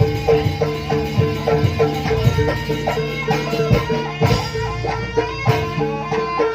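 Live jaranan gamelan music: a steady held tone under quick pitched metallic notes, with drum strokes keeping a brisk, even pulse.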